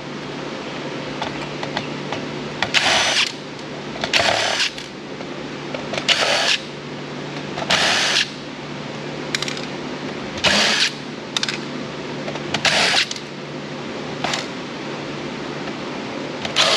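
A tool working on a Roomba's circuit board and housing in about eight short bursts, each about half a second long and one to two seconds apart, over a steady low hum.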